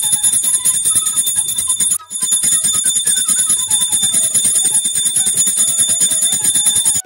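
Small brass hand-held puja bell rung rapidly and continuously during aarti, with a brief pause about two seconds in.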